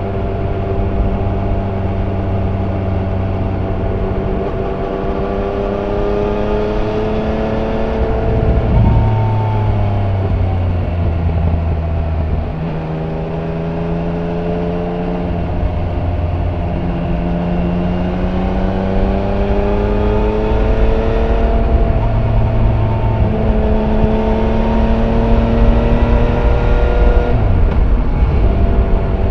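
Yamaha Niken GT's stock-exhaust three-cylinder engine heard on board while riding, its revs rising and falling repeatedly as the rider accelerates and eases off through bends. The engine pitch changes abruptly about nine seconds in and again near the end.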